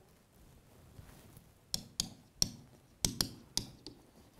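Pen tip tapping and clicking against the screen of an interactive whiteboard while writing: a run of about seven or eight sharp taps, starting a little under two seconds in.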